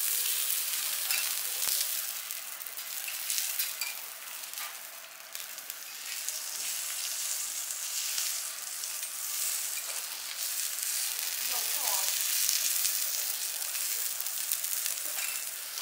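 A5 Kobe beef cubes and lotus root slices sizzling on a teppanyaki iron griddle: a steady frying hiss.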